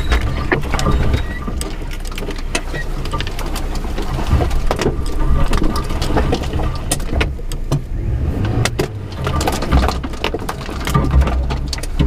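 Suzuki Jimny 4x4 crawling over a rough green lane: its engine runs with a low rumble while many sharp knocks and rattles come from the body and suspension.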